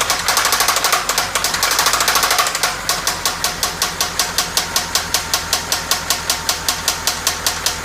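1997 Toyota Camry engine running with a loud, regular knock, busier for the first two and a half seconds, then settling into an even beat of about five knocks a second. The knock came on with the engine cutting out and white exhaust smoke, which parts-store staff took for a possible blown head gasket, with the engine likely to seize soon.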